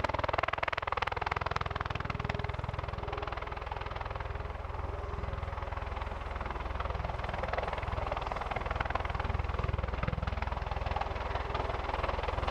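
Bell Boeing MV-22B Osprey tiltrotor in helicopter mode, its two large three-bladed rotors and turboshaft engines running steadily as it hovers low and pivots in pedal turns just before touching down.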